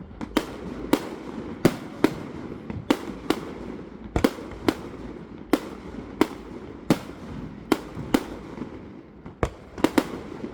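Fireworks display: an irregular volley of sharp bangs, about one and a half a second, over a continuous crackle of bursting shells.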